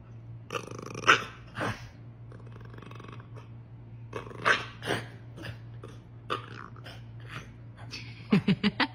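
Chow chow puppy growling and barking several times, with a quick run of about five short sounds near the end. A steady low hum sits underneath.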